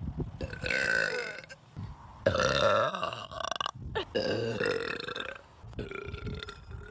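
Girls burping: about four long, voiced burps in a row, each lasting around a second, with short pauses between them.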